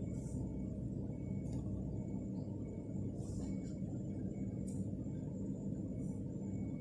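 Steady low background rumble, with a few faint short hisses over it.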